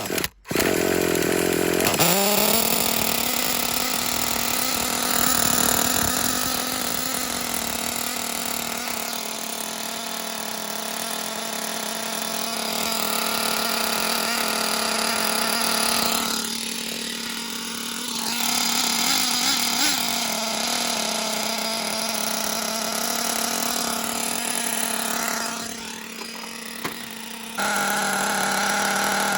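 Small nitro engine of a Losi LST RC monster truck catching about a second and a half in, its pitch rising quickly to a steady high idle. It then keeps running with a buzzing tone that softens briefly twice. The owner says the exhaust has seen better days and the engine has low compression.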